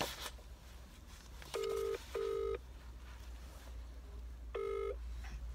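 Phone ringback tone in the British double-ring pattern heard over the phone's speaker: one double ring about a second and a half in, then a shorter single ring near the end as the call is answered.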